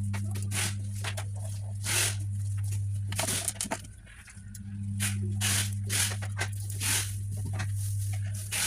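A steady low electrical hum, dropping away for about a second midway, with frequent short clicks and scrapes of small parts being handled.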